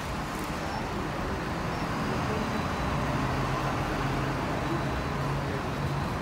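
Steady road-traffic and vehicle engine noise, with a low engine hum that grows stronger a few seconds in.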